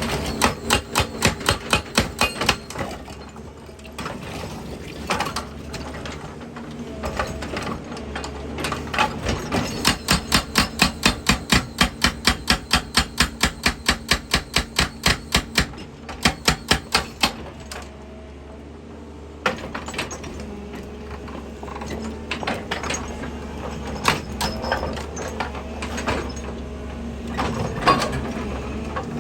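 Excavator-mounted hydraulic breaker hammering rock in runs of rapid strikes, about four a second, with pauses between runs. The excavator's diesel engine drones steadily underneath.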